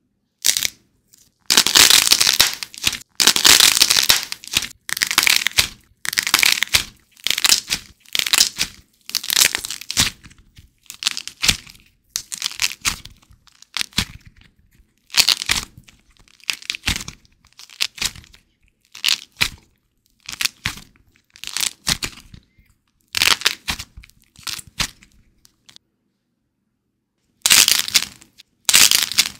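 Glossy-coated soft clay figures being squeezed and torn apart by hand: the hardened outer skin cracks and crinkles as the soft clay inside splits. It comes as a string of separate crackling bursts with short silent gaps between them, then a longer pause near the end before a loud burst.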